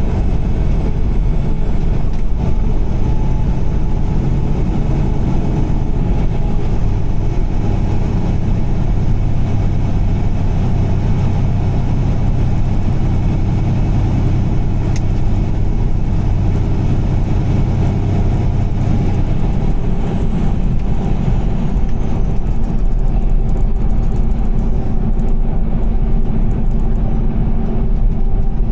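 Car driving on a wet highway in heavy rain: a steady rumble of engine, tyres on the wet road and rain, with no change in pace.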